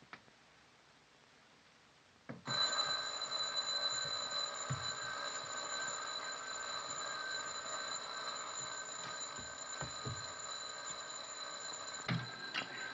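Electric doorbell ringing continuously, starting suddenly about two and a half seconds in, with a few dull knocks beneath it.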